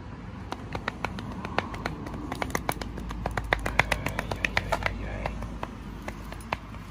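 A rapid, irregular run of light clicks and taps over a low rumble, busiest in the middle.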